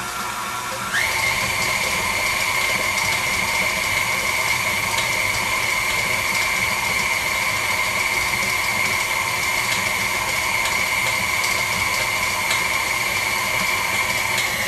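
KitchenAid Artisan 5-quart stand mixer's motor running steadily while its flex edge beater mixes cookie dough. About a second in it is switched to a higher speed and the whine jumps up in pitch, then holds steady.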